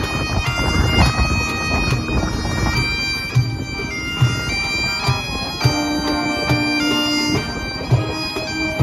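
Bagpipes playing a tune live with a street band, the pipes' steady drone and melody over strummed acoustic guitars, with low thumps keeping a regular beat.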